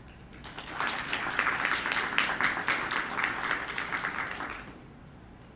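Audience applauding. The clapping swells in about half a second in and dies away shortly before the end.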